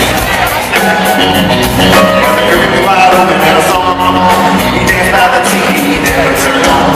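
Live country-rock band playing: a male lead vocal over electric guitars and a steady drum beat, loud and reverberant as heard from the arena crowd.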